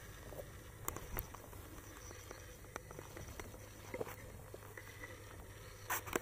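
Scattered light clicks, knocks and scuffs of a climber scrambling up bare rock beside a fixed chain, over a faint low rumble.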